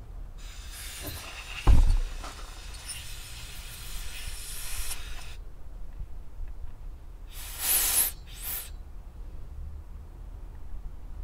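Compressed-air blow gun blasting air through a Jonsered 2071 chainsaw carburettor to clean it out. A long hiss lasts about five seconds with a sharp thump near the start, then two short blasts follow near the end.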